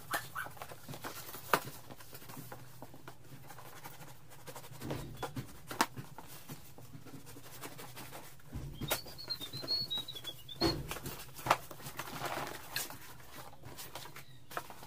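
A taped cardboard shipping box being opened by hand: scratching and cutting at the packing tape, cardboard scraping and rustling, and scattered sharp knocks as the box is handled. A brief high squeak comes about nine seconds in.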